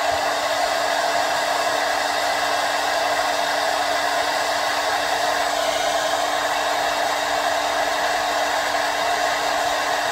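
Handheld hot-air blower running steadily: a rush of air over a constant motor hum, heating a stick-on dash emblem to soften its adhesive so it can be peeled off.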